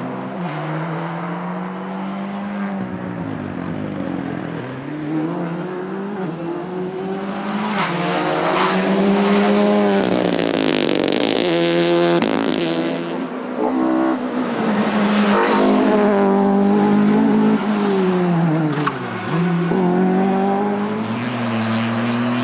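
Rally car engine revving hard, its pitch climbing and dropping again and again through gear changes as it passes, loudest in the middle, with a rapid stuttering of the engine about twelve seconds in.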